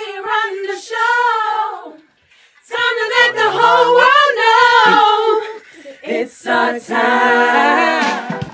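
A group of women singing together a cappella, in short phrases with brief pauses between them.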